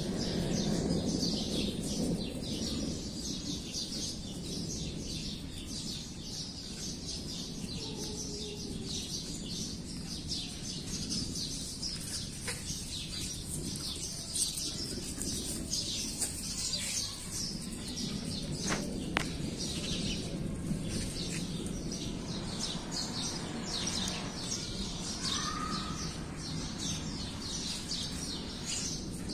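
Birds chirping, a dense continuous chorus of quick high chirps, over a low steady background hum, with a few sharp clicks in the middle.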